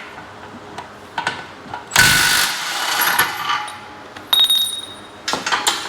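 Steel parts of a galvanized half rack clanking as they are handled: a loud clatter about two seconds in that rings on, a sharp ringing clink a little after four seconds, and small metal clicks between.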